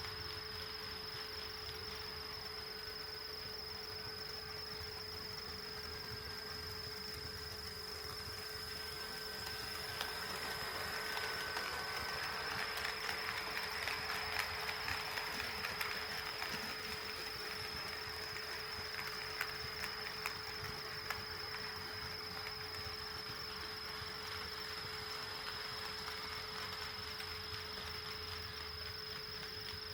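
HO scale model train rolling along the track, a rattle that swells and fades with sharp clicks of wheels over rail joints, over a steady high-pitched electrical whine.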